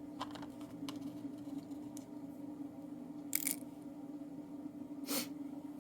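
Small metallic clicks and clinks of an Abus 72/40 padlock's locking balls and parts being handled and fitted into the lock body: about five separate ticks, the two loudest about three and five seconds in, over a steady low hum.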